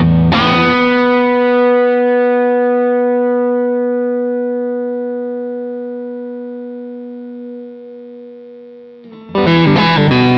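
Pine-body Telecaster-style electric guitar with Häussel pickups: a single note struck and left to ring, fading slowly over about nine seconds. Quick picked notes start again near the end.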